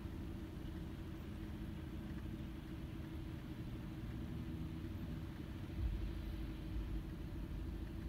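Steady rain heard muffled from behind a rain-covered pane of glass, under a low steady rumble and faint hum, with a brief low thump about six seconds in.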